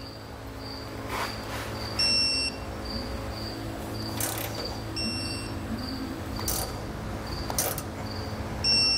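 Digital torque wrench tightening the base plate bolts: a high electronic pip repeats about twice a second, with three longer two-tone beeps about three seconds apart as bolts come up to torque. A few light clicks fall between the beeps.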